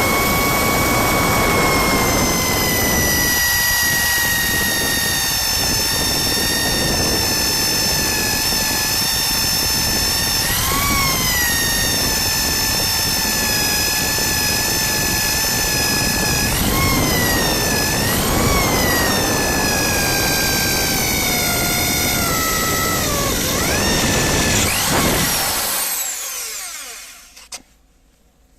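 Electric drill driving a diamond drill bit through metal: a loud, steady motor whine over a grinding noise. The pitch sags slowly, rises briefly a few times, then winds down and stops near the end.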